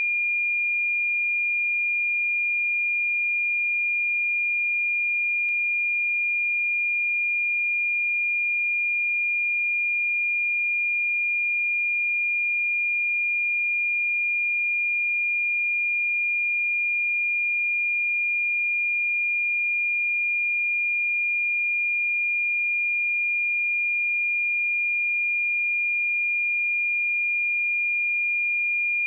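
A pure 2414 Hz sine-wave test tone, one steady high-pitched note held at constant loudness.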